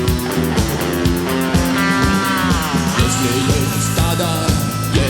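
Live rock band playing an instrumental break: drums and bass keep a steady beat under sustained guitar lines, and a lead line slides down in pitch about two seconds in.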